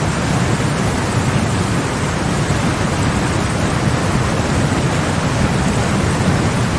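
Heavy rain pouring down: a steady, loud rushing noise with a deep rumble underneath.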